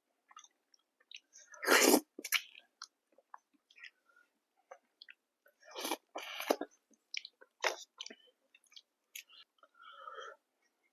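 A person chewing and biting food close to the microphone, with scattered short wet and crunchy mouth noises. The loudest is a short burst about two seconds in, with more bursts around six and eight seconds in.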